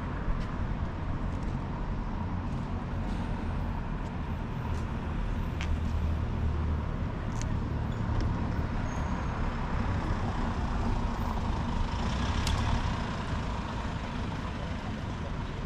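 Urban outdoor ambience: a steady low rumble of road traffic with a few faint clicks, and a short hiss about twelve seconds in.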